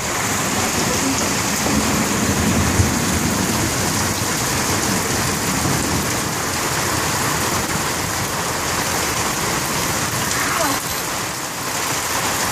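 Heavy rain pouring down: a steady, dense hiss that starts suddenly and keeps on without let-up.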